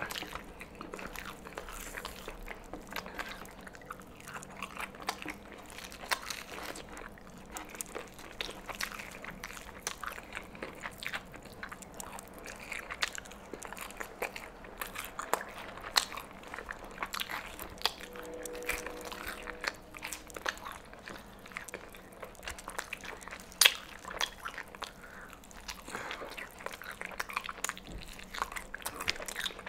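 Close-miked eating of Popeyes fried chicken: fingers tearing the crispy battered meat apart, crunchy bites and chewing in a run of irregular crackles and clicks.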